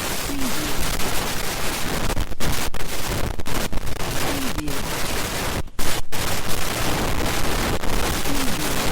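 Loud electronic static, a steady hiss full of crackle like a bad connection or a mistuned radio. It cuts out twice for an instant about six seconds in, and faint short warbling blips come through every couple of seconds.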